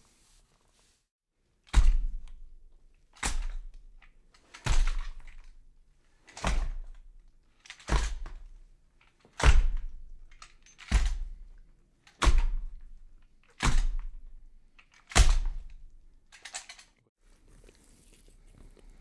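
A horror sound effect of ten slow, heavy thuds, about one every second and a half, each dying away over about a second. A couple of faint knocks follow near the end.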